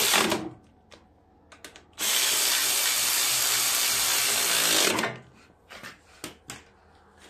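Cordless electric ratchet spinning a shroud bolt in two runs: the tail of one run right at the start, then a steady run of about three seconds. A few light clicks and knocks follow as the tool is put down.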